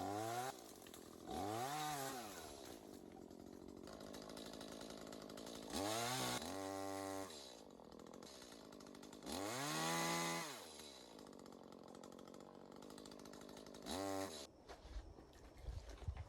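Echo CS-310 two-stroke chainsaw running and revved up and back down about five times, with the revs held briefly at the top around the middle. The engine sound stops near the end, leaving a few light knocks.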